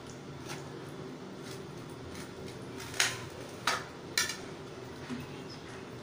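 Kitchen knife cutting through a toasted bread slice on a serving plate, the blade clicking against the plate; three sharp clicks about three to four seconds in are the loudest.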